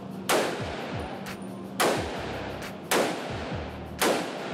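Four single shots from a Spike Tactical AR-15 pistol chambered in .300 AAC Blackout, spaced a second or more apart, each echoing in an indoor shooting range, over background music.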